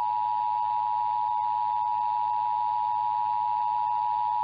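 Emergency Alert System attention signal: the steady two-tone EAS alarm held unbroken, sounding during a required monthly test of the system.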